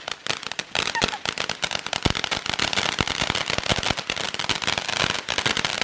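Fountain firework going off: dense, continuous crackling with many sharp pops in quick succession.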